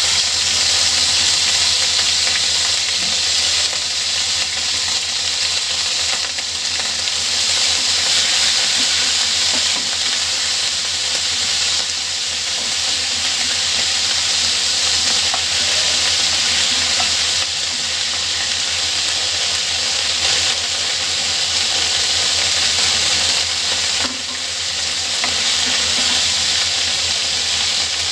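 Ginger-garlic paste frying in hot oil in a pan of chicken pieces, a steady sizzling hiss, stirred with a wooden spatula.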